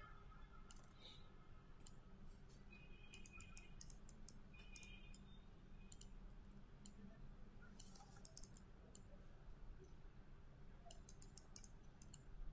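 Faint computer mouse clicks, scattered and with short runs of several clicks about three seconds in and near the end, over a low steady hum of room tone.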